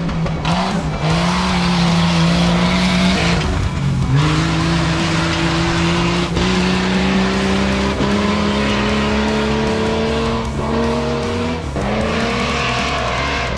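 Off-road race vehicle's engine under hard acceleration on a dirt track. Its pitch drops at a gear change about three and a half seconds in, then climbs steadily, with another shift near the end.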